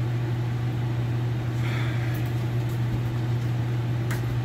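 A steady low hum, like a running motor or fan, with a single sharp click near the end.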